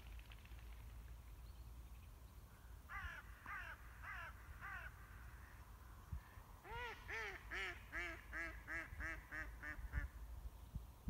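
A duck quacking: four calls about three seconds in, then a run of about ten quacks from about seven seconds in that come faster and fall in pitch.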